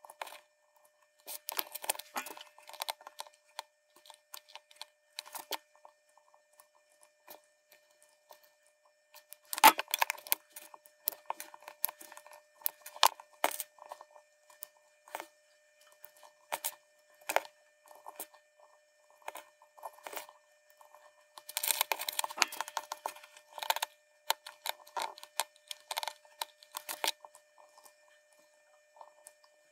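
Wire leads of loose LEDs clicking and scraping against one another and against a small circuit board as the LEDs are picked from a pile and pushed into the board's holes. The clicks are irregular, with short bursts of rustling about ten seconds in and again a little past twenty seconds.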